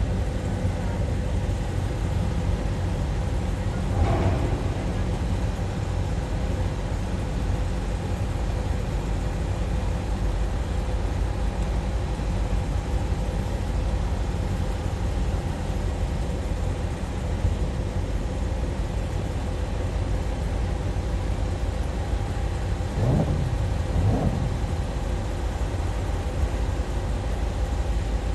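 Steady low rumble of boat engines with a constant hum, swelling briefly about four seconds in and twice in quick succession near the end.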